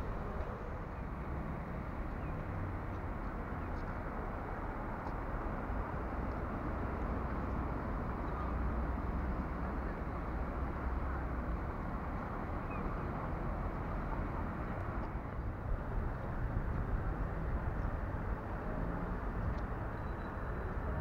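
Steady outdoor town ambience: an even low rumble and hiss, with no clear single event standing out.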